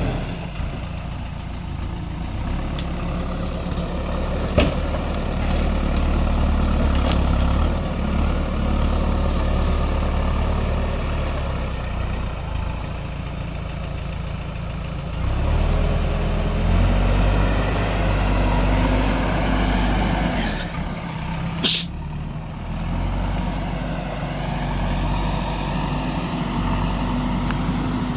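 Diesel engine of a JCB backhoe loader running, its revs rising and falling as it works. There is a small click about five seconds in and a brief sharp burst of noise about three-quarters of the way through.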